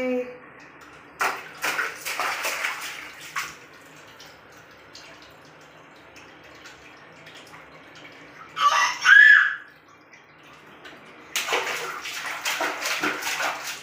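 A toddler splashing his hands in a plastic tub of water, in two spells of splashing. There is also a brief high-pitched child's vocal sound a little before the second spell.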